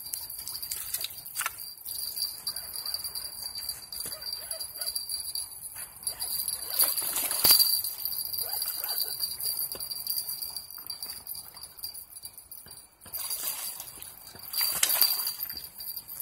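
Crickets or similar night insects trilling on one steady high pitch, over a high hiss. Brief rustling or handling noises come about halfway through and again near the end.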